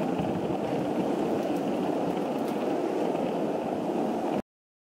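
Skateboard wheels rolling over street pavement, a steady rumble that cuts off suddenly a little after four seconds in.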